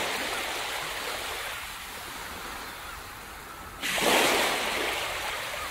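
A rushing, surf-like noise that fades slowly, then swells suddenly just under four seconds in and dies away again.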